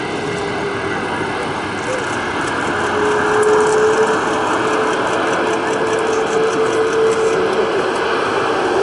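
Boeing 777F's GE90 jet engines running as the freighter touches down and rolls out: a loud, steady rush of engine noise with a steady whine, swelling slightly about three seconds in.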